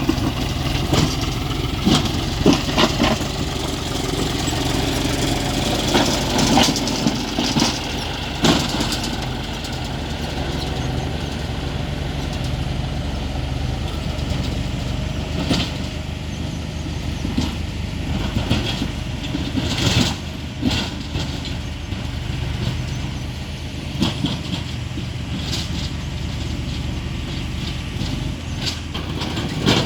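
John Deere tractor's diesel engine running steadily at work, with sharp clanks and knocks every few seconds.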